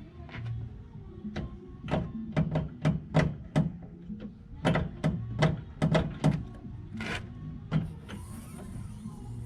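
A run of irregular sharp clicks and knocks, about fifteen over several seconds, with the busiest stretch in the middle: hands working the Golf's hood and newly fitted hood latch.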